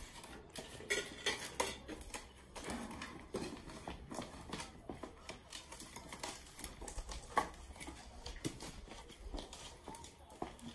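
Scattered clinks and knocks of metal kitchen utensils and cookware, pots and pans being handled and stirred.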